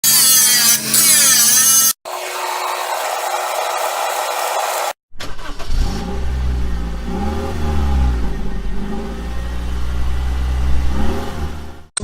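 Car sounds in three abruptly cut pieces: a loud, wavering high-pitched sound for about two seconds, then an even hiss for about three seconds, then a car engine revving up and down several times.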